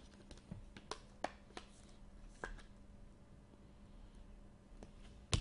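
Faint clicks and taps of a trading card being handled and slid into a rigid plastic top loader, a few scattered ticks about a second apart, with a sharper, louder tap near the end.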